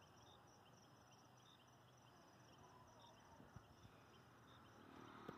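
Near silence, with faint, steady high-pitched chirping of night insects.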